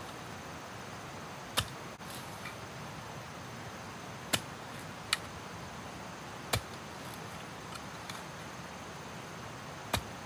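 Five sharp, short knocks or snaps at uneven intervals over a steady faint hiss.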